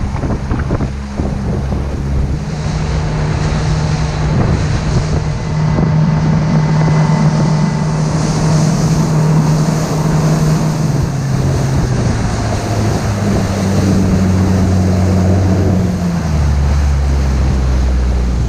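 Boat engine running under way, with heavy wind on the microphone and water noise around it. The engine note shifts in pitch a few times and drops lower near the end.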